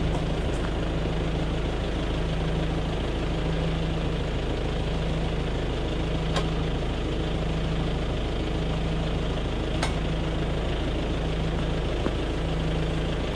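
Kubota L4701 tractor's four-cylinder diesel engine idling steadily, with two faint clicks partway through.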